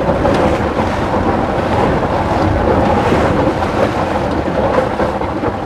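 Wind buffeting the microphone over the wash of waves around a small boat: a steady, loud rumbling noise.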